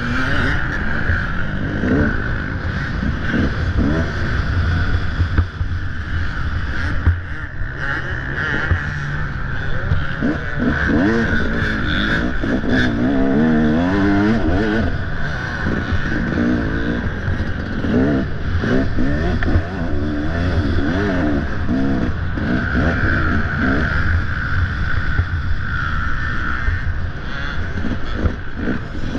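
Off-road dirt bike engine being ridden hard, revving up and falling back again and again as the throttle is worked.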